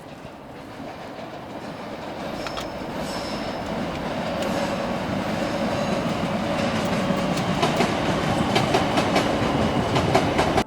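A rumbling vehicle noise growing steadily louder, with a run of sharp clicks in the last few seconds, then cut off abruptly.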